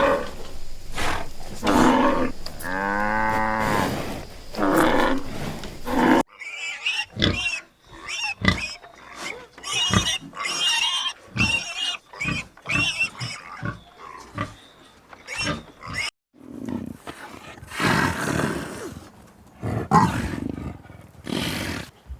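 Farm animal sounds in three separate cuts: first pitched animal calls, with a long drawn-out call about three seconds in; then rapid sharp clicks mixed with high chirping calls; then lower, noisier animal sounds.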